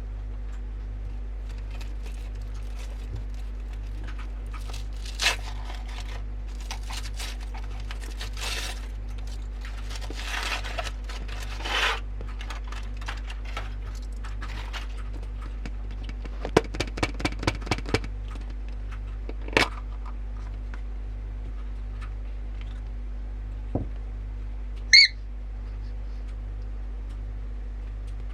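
Scattered small handling noises, soft scrapes, rustles and clicks, over a steady low hum, with a quick run of about eight sharp clicks past the middle and a short high squeak near the end as the loudest sound.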